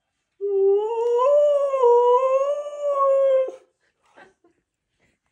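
A husky's long howling 'talk', one call of about three seconds that wavers up and down in pitch. It is the dog answering back at being told to go to bed.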